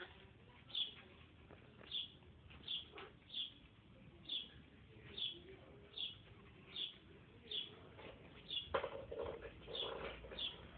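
A parrot giving short, high chirps over and over, about one a second. A louder, rougher sound comes in near the end.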